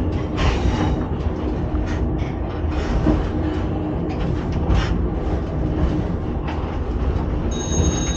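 Reko-ET electric railcar running along the track, heard from inside the driving-trailer cab: a steady rumble and hum with irregular knocks from the wheels over the rails. A brief high steady tone sounds near the end.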